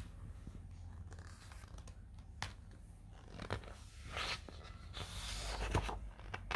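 Page of a large picture book being turned by hand: a few light taps, then the paper rustles and swishes over about a second and a half as the page turns over.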